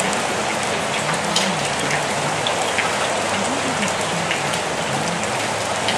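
Steady rain falling, with scattered sharper drop patters. A faint, low, wavering voice murmurs underneath: subliminal affirmations mixed in below a rain track.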